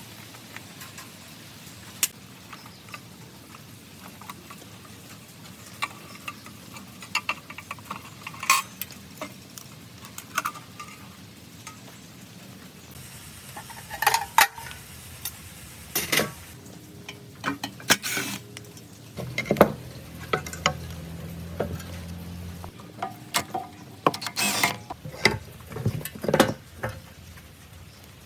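Metal tools and parts clinking and knocking as they are handled, a string of separate sharp clicks that grows busier about halfway through, with a steady low hum for a few seconds past the middle.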